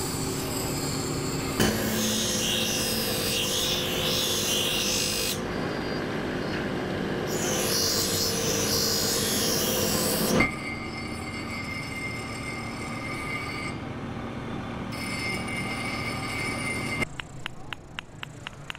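Grinding wheel running steadily while a steel razor blade is pressed to it in two long spells of hissing grinding, then spinning on with the blade lifted. Near the end a quick run of light clicks takes over.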